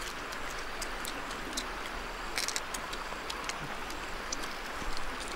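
Steady outdoor background hiss with scattered faint clicks.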